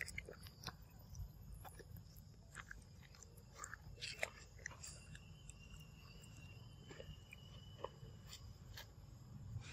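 A macaque biting into and chewing the soft flesh of a ripe papaya: faint, scattered wet clicks and smacks, over a low background rumble.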